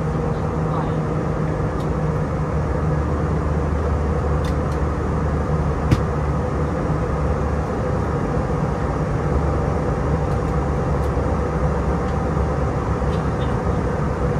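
Steady cabin drone of the Airbus A319's IAE V2500 turbofan engines and rushing airflow in flight, heard from inside the cabin, with low steady tones under an even hiss. A single faint click about six seconds in.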